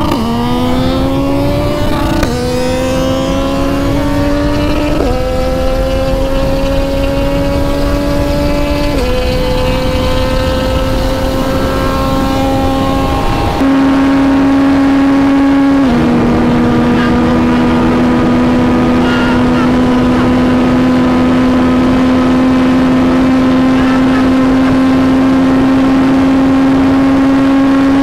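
Sport motorcycle engine at full throttle, climbing in pitch through each gear with a drop at every upshift, several times in the first half, then held at a steady high pitch at sustained top speed, with wind rushing past.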